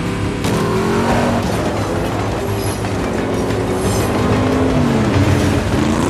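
Car engines revving hard at speed in an action-film sound mix, the engine pitch rising and falling over a steady low rumble.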